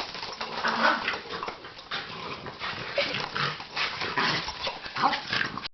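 Dachshund playing rough with a ball: irregular short, breathy dog noises and scuffling, several bursts a second with a few brief low pitched sounds mixed in.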